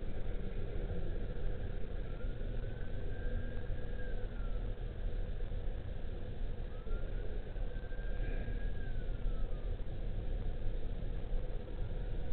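Steady low outdoor rumble and hiss picked up by a doorbell camera's microphone, with a faint whistling tone that rises, holds and falls away three times, a few seconds apart.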